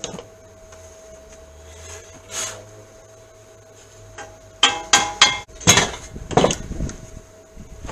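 Sharp metallic knocks and clatter, with a quick run of four or five strikes about four and a half seconds in and then about a second of rattling clatter. A faint steady hum lies underneath.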